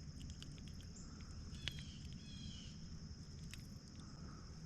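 Steady high-pitched drone of insects such as crickets, with a couple of short bird chirps about two seconds in, over a low rumble and a few faint clicks.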